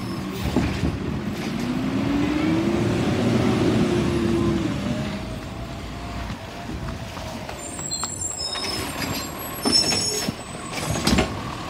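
Garbage truck engine revving as the truck pulls away, its pitch climbing and holding for a few seconds before fading. A couple of sharp knocks near the end.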